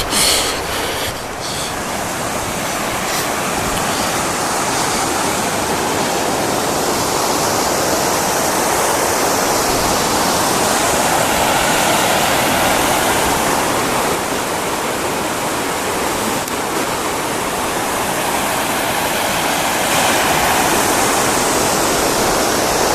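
Steady loud rush of a backcountry river running high over rapids, with a few short knocks at the start.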